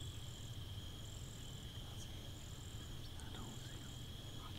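Crickets trilling steadily: an unbroken high-pitched trill, with a second, higher trill that comes in for about half a second roughly once a second, over a faint low rumble.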